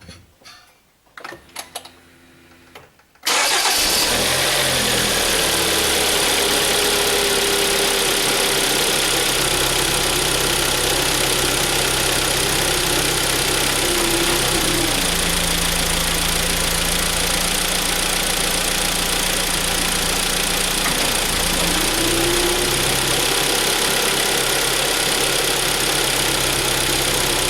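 Hyundai ix35's 2.0-litre G4KD four-cylinder petrol engine cranked and started about three seconds in, then idling steadily; its note changes around the middle and again a few seconds later as the automatic gearbox is shifted into drive, with no clatter on engaging, the fault cured by the timing-chain repair.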